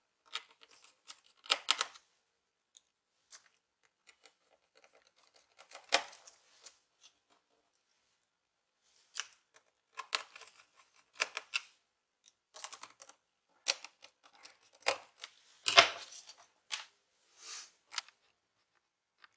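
Keys of a Toshiba Satellite C655 laptop keyboard clicking and the plastic keyboard tapping as fingers press down across it to seat it. Irregular clicks, with a pause of a couple of seconds about halfway.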